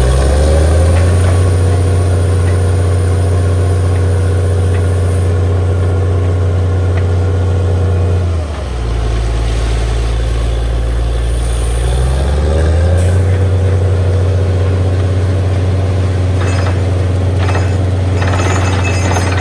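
Borewell drilling rig's engine running loud and steady. It drops in speed about eight seconds in and picks up again a few seconds later.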